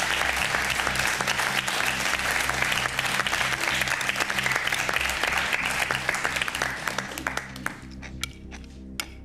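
Studio audience applauding over steady background music; the applause dies away about three quarters of the way through, leaving the music and a few light clinks of cutlery on a plate near the end.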